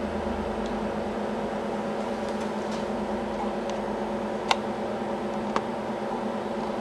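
Harbor Freight 9x20 bench lathe running with a steady motor hum while the clamped part's runout is checked. Two short clicks about a second apart come midway.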